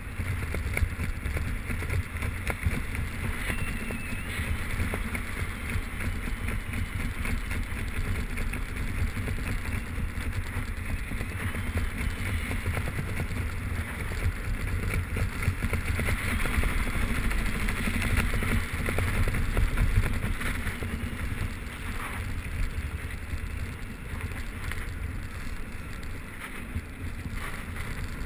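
Wind buffeting a skydiver's camera microphone during the descent under an open parachute: a steady, rough low rumble with a rapid flutter.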